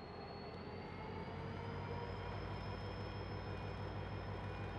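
KiwiRail DFB class diesel locomotive approaching slowly. Its engine's low, pulsing sound grows louder about a second in, over a thin high whine that rises slightly in pitch.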